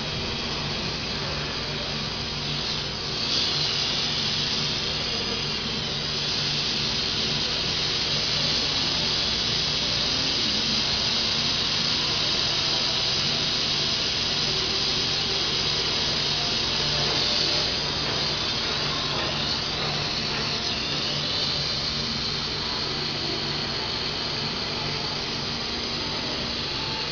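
Machinery running steadily: a low hum under a strong high hiss. The hiss grows louder about three seconds in and eases off again a little before eighteen seconds.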